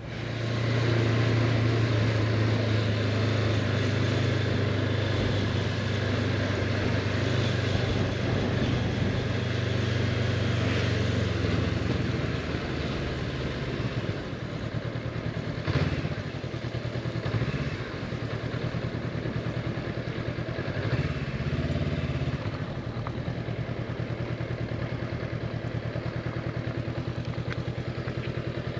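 Honda CB500X parallel-twin motorcycle engine running steadily while being ridden. About halfway through, the engine pitch rises and falls a few times as the throttle changes, with a single sharp knock among them.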